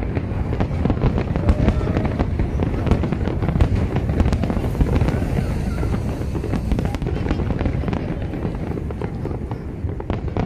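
Aerial fireworks display: a dense, continuous run of shell bursts and crackles, many close together, over a constant low rumble of overlapping booms.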